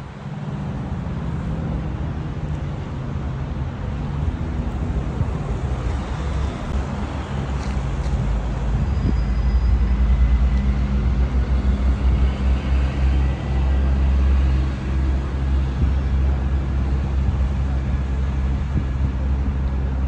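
Street traffic in a city: a steady low rumble of road vehicles with a low engine hum, growing louder about eight seconds in.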